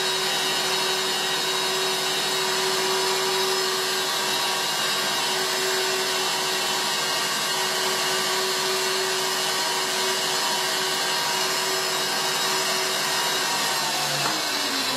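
Electric stand mixer running steadily, its whisk whipping egg whites to the frothy stage for meringue. It is switched off near the end.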